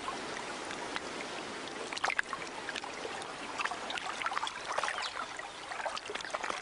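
Water sloshing in a shallow tank, with small irregular splashes and trickles.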